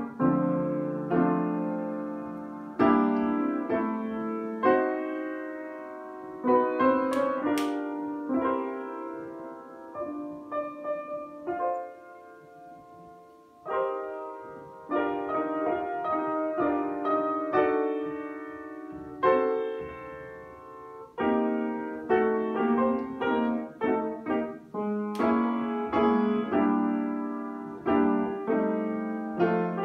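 An upright acoustic piano being played by hand: chords struck one after another, each ringing and fading. The playing thins out and goes softer for a few seconds about a third of the way through, then picks up again.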